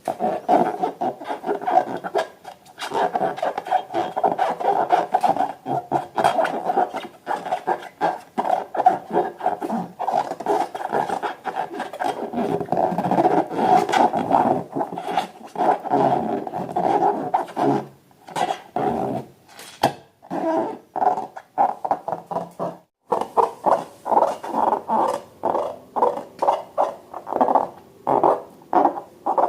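Slime being squeezed and worked by hand with balloons: a dense run of rapid squelching and crackling that thins out about two thirds of the way through, stops briefly, then picks up again.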